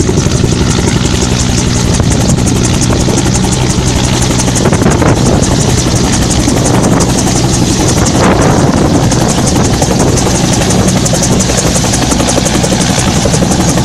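Helicopter close by, its rotor chopping rapidly and steadily over the drone of its engine.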